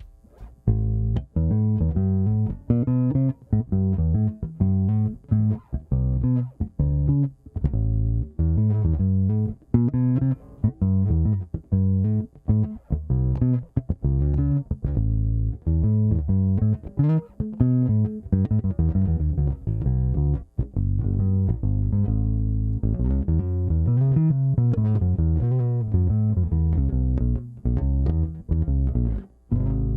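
Nordstrand Acinonyx short-scale electric bass played solo: a run of plucked notes, ending on a held low note. It is set to the fourth setting of its tone selector.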